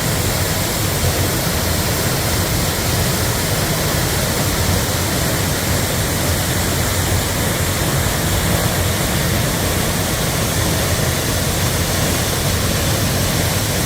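Sol Duc Falls rushing: loud, steady, unbroken noise of falling water.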